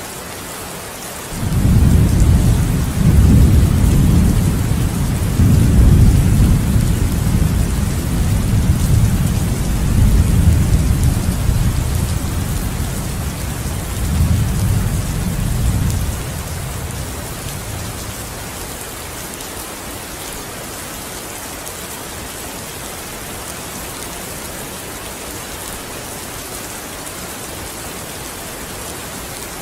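Steady rain falling, with a long roll of thunder that starts about a second and a half in, rumbles for some fifteen seconds and then dies away, leaving the rain alone; another rumble begins near the end.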